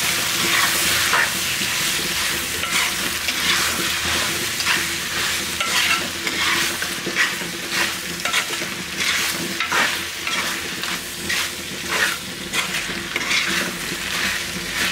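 Raw chicken pieces sizzling in hot gingelly oil with tempered spices and shallots, stirred with a spatula. A steady frying hiss runs under a scrape of the spatula against the pan about once or twice a second.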